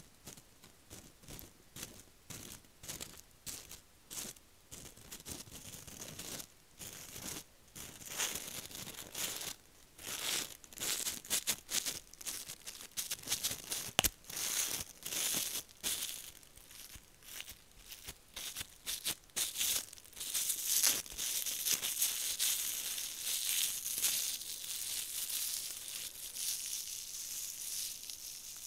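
Fingertips and long acrylic nails crinkling and pressing gold leaf foil into slime in a clear plastic tub, close to the microphone: a run of dry crackles and rustles with one sharp tick about halfway through. The crackling grows denser and more continuous in the last third.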